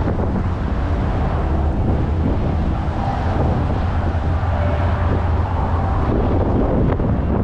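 Traffic on a busy city boulevard passing by, under a steady low rumble of wind buffeting the microphone.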